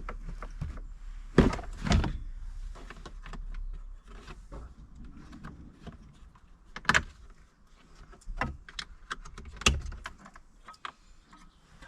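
Knocks and clicks of a car's plastic interior trim being worked loose by hand, with a few sharp knocks standing out about a second and a half in, at two seconds, at seven seconds and near ten seconds.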